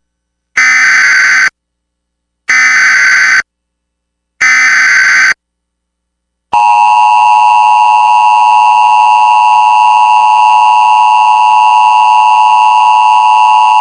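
Emergency Alert System broadcast signal: three short digital SAME header squawks, about a second each and a second apart, then the steady two-tone EAS attention signal starting about six and a half seconds in.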